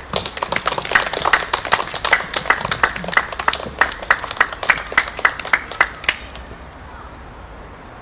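Audience applauding. The claps fall into an even beat of about three a second and stop about six seconds in.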